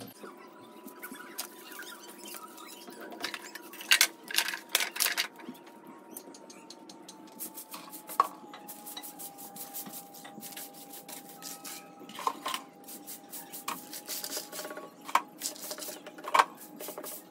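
Irregular sharp clicks and clatters of small hard objects, loudest in a cluster about four to five seconds in and again later. A faint steady tone sinks slowly in pitch underneath.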